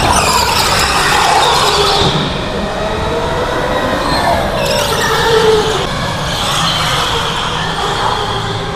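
Electric go-karts driving past: the motors' whine glides up and down in pitch as the karts speed up and slow through the corner, several whining tones overlapping.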